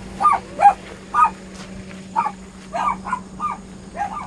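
Dogs barking repeatedly in short, separate barks, about two a second, with a faint steady low hum underneath.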